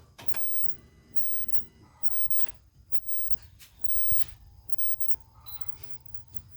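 A few sharp clicks and knocks over a low steady rumble: the headlight switch being clicked on to test newly wired fog lights.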